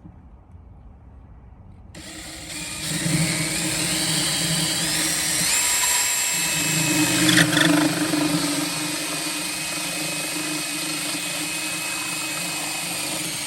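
Power drill starting about two seconds in, its whine rising in steps as the motor speeds up and then running steadily, driving a screw through a wall connector base plate into a wall stud. A short click partway through.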